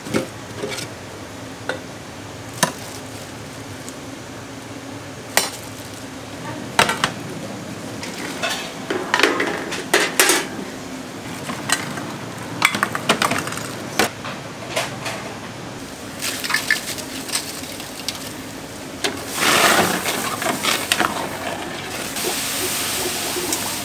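Dishes and metal utensils clinking and knocking now and then over a steady background, with a short louder rush of noise near the end.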